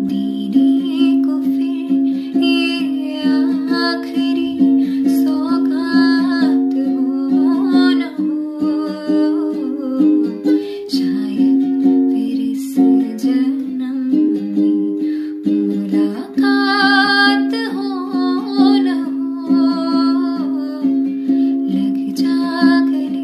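Ukulele strummed steadily, with a woman's voice carrying a melody over it, wavering with vibrato about two-thirds of the way through.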